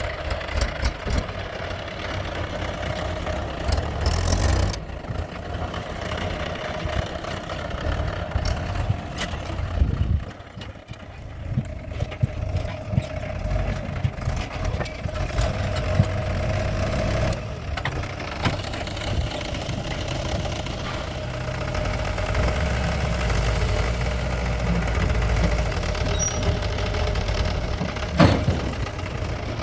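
Diesel engines of a backhoe loader and tractors running steadily, with occasional sharp knocks. The level drops briefly about ten seconds in.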